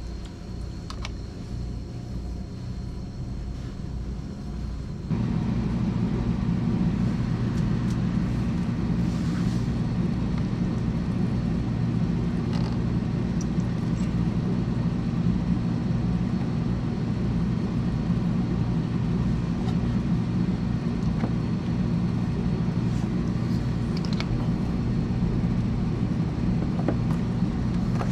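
A motor-driven machine hum that switches on about five seconds in, sharply louder than the low hum before it, and then runs steadily.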